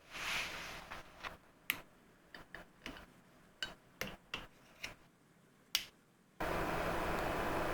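Small sharp clicks and taps of metal skateboard-motor parts and hand tools being handled, scattered irregularly. About six seconds in, a steady hiss-like noise starts abruptly and is louder than the clicks.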